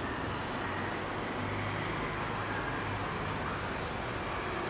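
Small electric motor driving a cardboard toy tractor across a wooden table: a steady low hum under an even hiss.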